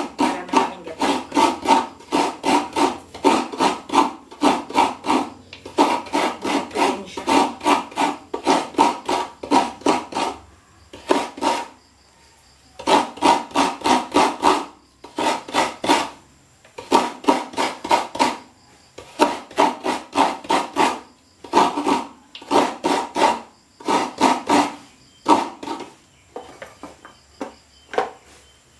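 Half a coconut scraped by hand against the serrated blade of a coconut grater stool (kudkuran), shredding the white meat: runs of quick rasping strokes, about four a second, broken by short pauses.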